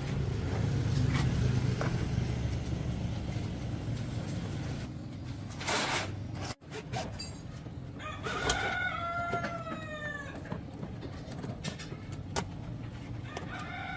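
A rooster crowing: one long drawn-out crow about eight seconds in, with another beginning near the end. Before it there is a low steady rumble, then a short noisy rush.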